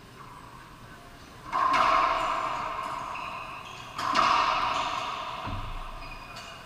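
Two loud racquetball hits about two and a half seconds apart, each ringing out for about two seconds in the enclosed court.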